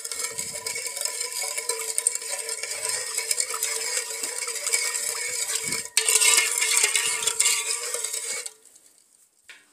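Metal spoon stirring a thick liquid mixture in an aluminium pot, scraping and clinking against the pot's sides and bottom. The stirring gets louder about six seconds in and stops abruptly near the end.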